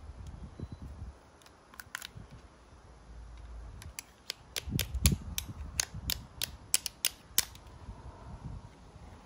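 Sharp metal clicks, roughly three a second, as a hand tool works at the end cap of a Briggs & Stratton electric starter motor being taken apart, with dull knocks from handling the starter.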